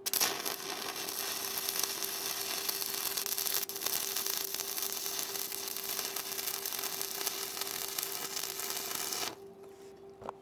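Electric arc welding a steel corner joint: a steady crackling sizzle of the arc for about nine seconds, with a short break near the four-second mark, then the arc cuts off. A steady hum runs underneath.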